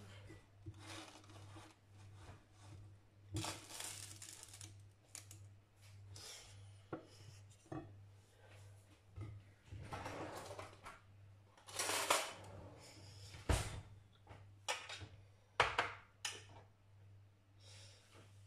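Kitchen handling sounds: rustling, clinks and sharp clicks as a pan is moved on the hob and containers are set down on the counter, the sharpest knocks coming in the second half. A steady low hum sits underneath.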